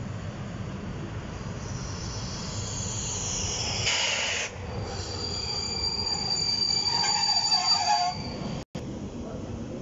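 PKP Intercity passenger train hauled by an EP07 electric locomotive pulling in and braking, its brakes and wheels squealing. The squeal rises over the first few seconds, then holds as one steady high note with lower screeches joining it near eight seconds. The sound drops out for an instant just before nine seconds.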